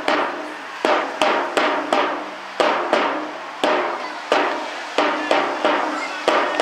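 Repeated sharp percussive strikes, one or two a second at an uneven pace, each with a short ringing tail.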